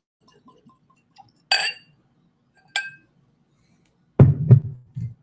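Whisky glugging faintly from a glass bottle into a glass, then two sharp glass clinks a little over a second apart as bottle and glass are handled. Three heavy low thumps follow near the end.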